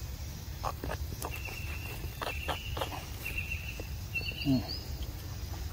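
Outdoor sounds close to a pair of macaques: scattered light clicks and rustles, a thin high whistle-like tone on and off in the middle, and one short pitched call about four and a half seconds in, the loudest sound, over a steady low rumble.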